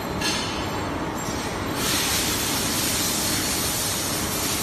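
Metal-cutting band saw machine running with a steady mechanical din; a loud high hiss joins about two seconds in.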